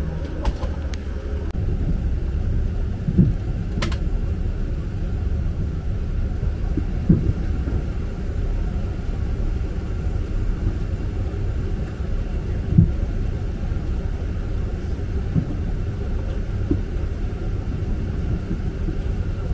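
Steady low cabin rumble of a Boeing 777-200 parked at the gate, heard from a window seat. Three louder dull thumps stand out, about 3, 7 and 13 seconds in, with a sharp click near the 4-second mark.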